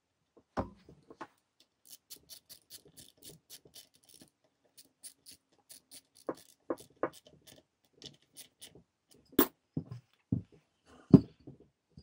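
Small ratchet clicking in quick, even ticks as a nut is run down on the alternator's rear terminal. Then come several separate clacks and knocks of metal and plastic as the tool and the plastic rear cover are handled, the loudest near the end.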